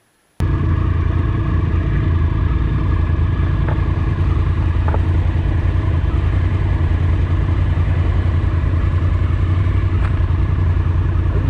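Honda Africa Twin's parallel-twin engine idling steadily, cutting in abruptly about half a second in.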